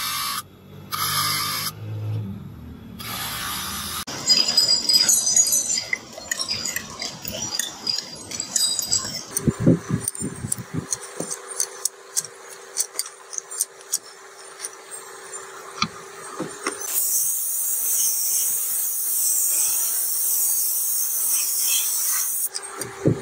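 A brake shoe pressed against a spinning grinding disc, squealing in short bursts for the first few seconds. Then comes a run of metal clatter, knocks and clicks from handling parts, and a steady hiss near the end.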